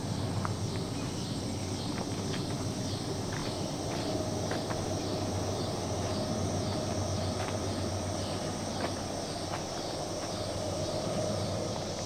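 Insects calling in a pulsing chorus, about two or three pulses a second, with a steady high shrill above it. A low steady rumble runs underneath, with scattered light clicks.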